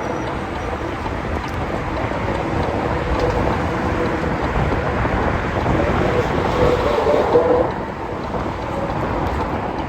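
Steady wind rush and buffeting on the microphone, mixed with tyre and road rumble, as a Circooter Raptor electric scooter is ridden at speed along a trail.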